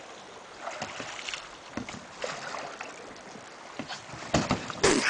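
Oars knocking in their oarlocks and against the side of a metal rowboat as it is rowed: scattered light knocks, then several louder clunks near the end.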